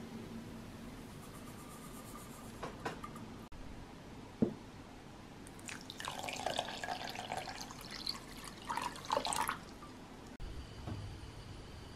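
Water poured from a measuring cup onto granulated sugar in a stainless steel saucepan, splashing for about four seconds from roughly halfway through. Before it come a faint hiss of sugar pouring into the pan and a single sharp knock.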